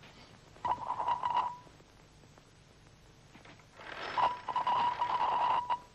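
Bells of an early wall-mounted telephone ringing in two bursts, a short one about a second in and a longer one of about two seconds near the end.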